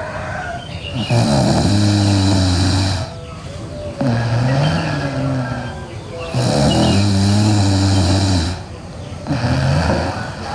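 A sleeping girl snoring loudly: long, droning snores of about two seconds each, a louder one about every five seconds with a weaker one between.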